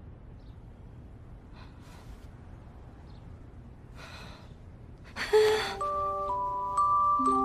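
A woman's faint breaths and sighs over low hiss, then a loud rush of breath-like noise about five seconds in as background music of held, bell-like notes begins.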